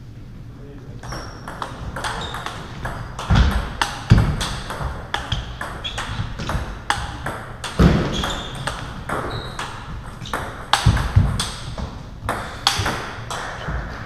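Table tennis ball clicking off bats and bouncing on the table in a long rally, the hits coming irregularly for over ten seconds. A few heavy low thuds are mixed in.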